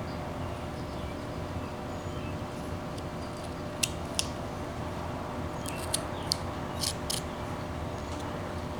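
Carving knife cutting into wood: about six short, crisp cuts, in pairs, starting about four seconds in, over a steady background hiss.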